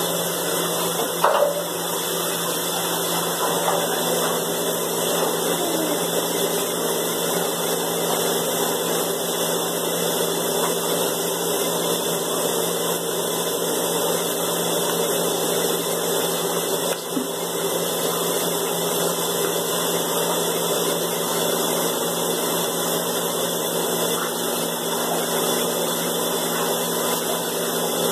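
Water running steadily from the bathtub tap during a dog's bath, an even rush with a faint hum in it. A brief bump about a second in.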